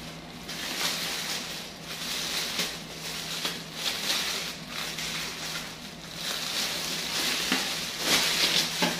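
Plastic courier mailer bag crinkling and rustling in irregular bursts as it is pulled and torn open by hand, louder near the end.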